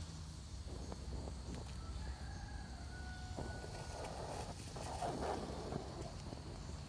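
Small twig fire crackling faintly under a bowl of water being heated, over a steady low rumble of distant traffic. A harsh animal call stands out about halfway through.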